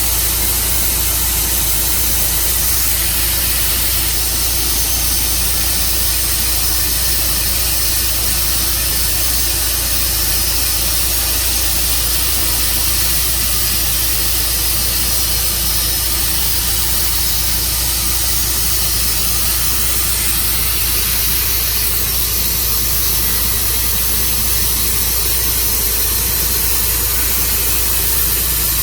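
Tru-Cut sawmill running steadily: an engine with a loud, even hiss from the saw over it, unchanging throughout.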